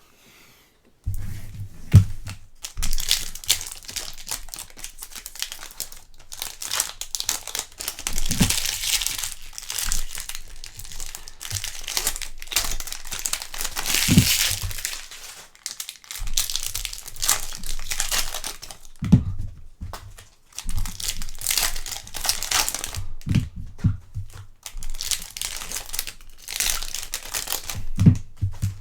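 Foil trading-card pack wrappers crinkling and tearing as packs are opened by hand, with occasional soft thumps.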